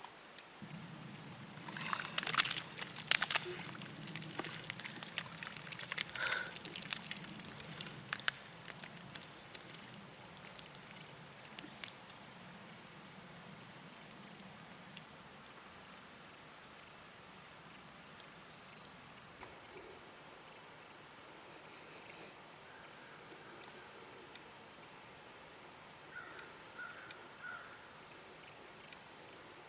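A cricket chirping steadily, about two short high chirps a second, over a continuous high insect whine. A few sharp clicks and knocks in the first several seconds.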